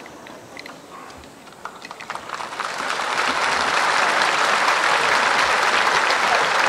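Crowd applause: a few scattered claps at first, swelling about two seconds in into steady, sustained clapping.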